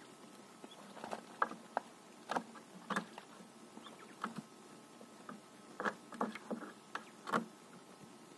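Quail shuffling and pecking in a box of hay and sand: irregular rustles of straw and small taps, in clusters in the first few seconds and again toward the end.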